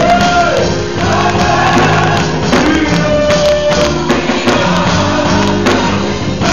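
Gospel choir singing live with instrumental accompaniment and percussion.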